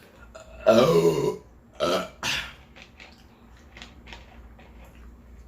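A person's loud, drawn-out burp about two-thirds of a second in, followed by two shorter, quieter sounds a second later.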